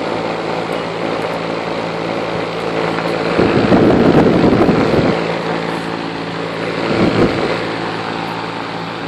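Comfortmaker HVAC package unit running with its compressor and outdoor condenser fan on: a steady hum under a rush of air. The air rush swells louder for a couple of seconds about three seconds in, and again briefly near seven seconds.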